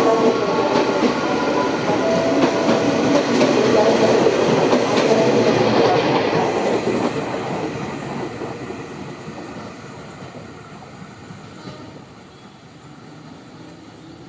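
Jakarta KRL electric commuter train sounding its horn with steady tones during the first six seconds or so, over the rumble and clatter of its wheels. The running noise then fades away as the train moves off.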